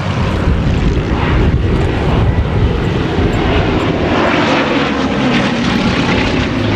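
Bristol Blenheim Mk I's twin Bristol Mercury nine-cylinder radial engines droning loudly as the aircraft flies past, the note falling in pitch in the second half.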